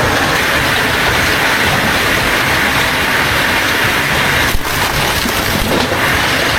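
Loud, steady machine noise with no clear pitch, with a short break about four and a half seconds in.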